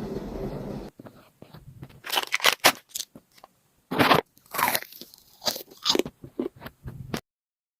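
Freeze-dried watermelon jelly candy being bitten and chewed, giving a run of sharp, irregular crunches that stop abruptly near the end.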